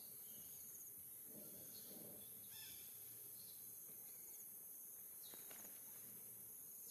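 Near silence: faint outdoor ambience with a steady high-pitched insect hiss and a few faint soft rustles.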